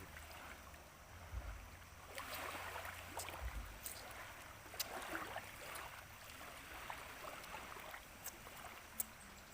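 Small waves washing in at the shore, swelling and fading every couple of seconds, with a low wind rumble on the microphone in the first few seconds and a few sharp clicks.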